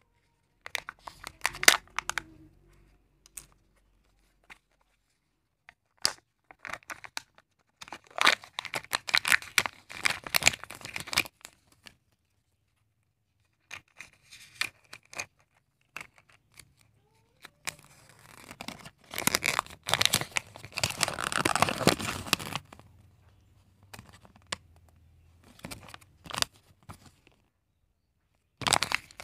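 Foil, plastic and paper crinkling and tearing in separate bursts with silent pauses, as a Kinder Joy egg's peeled seal, plastic toy capsule and folded paper leaflet are handled. The longest, loudest stretch of crinkling comes about two-thirds of the way through.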